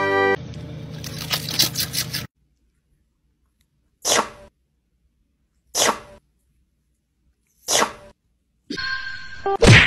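Black cat sneezing three times, short sharp sneezes about two seconds apart, while its head is being stroked. Before the sneezes there is a rustling noise, and a brief louder sound comes right at the end.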